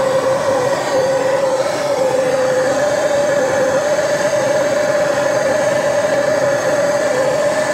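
Gas torch flame burning steadily, a constant rushing hiss with a wavering mid-pitched tone in it, as it heats a steel motorcycle shift shaft joint so the parts can be pressed together.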